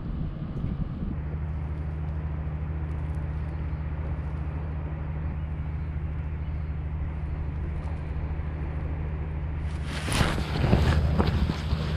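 Steady low hum of a boat engine running, with a louder rush of wind and water noise near the end.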